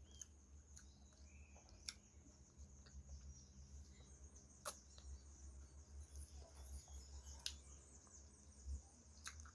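Near silence: faint room tone with a steady high hiss and low hum, and a few soft clicks.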